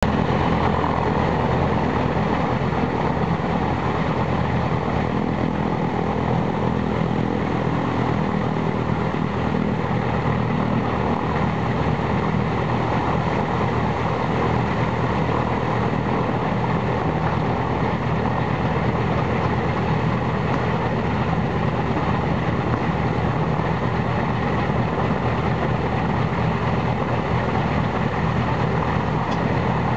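Ilyushin Il-14's Shvetsov ASh-82T radial piston engine running steadily at idle, with the propeller turning.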